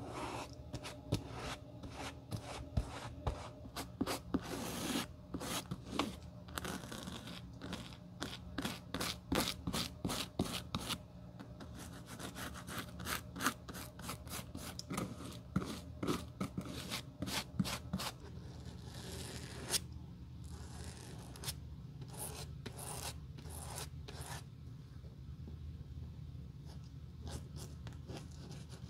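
Flat stiff brush stroked back and forth, spreading liquid over leather and then a rubber sole sheet: quick scratchy strokes, several a second for the first two thirds or so, then sparser.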